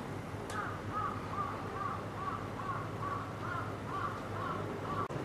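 A bird calling in a quick series of short, repeated notes, about three a second, over a steady low background hum.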